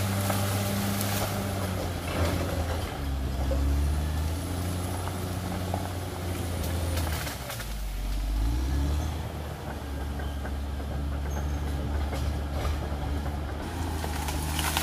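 Cat D6R XL bulldozer's diesel engine running steadily. Its pitch drops about seven seconds in and climbs back a second later, with a few faint knocks.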